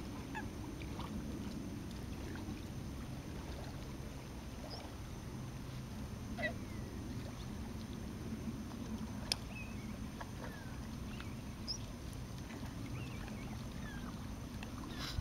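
Steady low outdoor rumble with scattered short, high chirps and down-slurred calls of distant birds, one a little louder about six and a half seconds in, and a single sharp click about nine seconds in.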